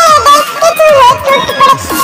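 Children's song playing: a high-pitched, sped-up-sounding sung voice over music.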